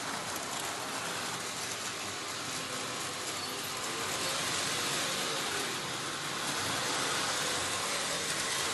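Märklin BR 218 model train running on its track: a steady rolling rattle of the wheels on the rails mixed with the whir of the locomotive's motor.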